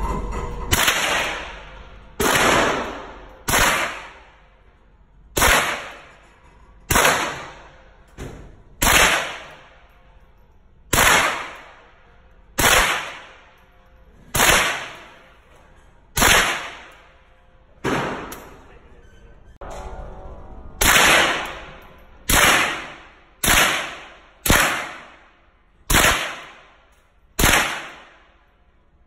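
A Ruger 10/22 semi-automatic .22 Long Rifle firing single shots, about twenty in all, roughly one every second and a half. Each crack has a reverberant tail from the indoor range's concrete lane.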